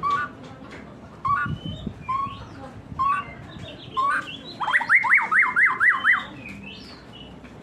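Murai songbird singing: short rising whistled notes about once a second, then a fast run of about seven up-and-down notes near the middle.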